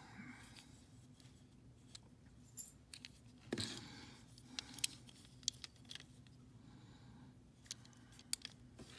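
Die-cast metal toy cars handled in the fingers: scattered faint clicks and taps as the cars knock together and against the hand, over a low steady hum.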